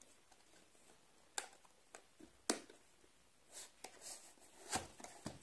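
Cardboard phone box being handled: the white inner box slid out of its sleeve, with a few scattered taps and short scrapes, the sharpest about two and a half seconds in and again near the end.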